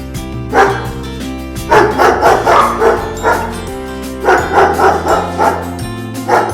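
A dog barking: one bark, then two runs of quick barks, then a last single bark, over steady background guitar music.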